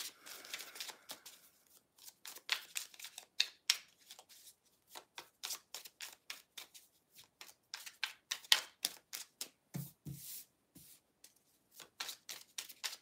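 A deck of tarot cards being shuffled by hand: a quick, uneven run of light papery clicks and flicks as the cards slide and tap against each other.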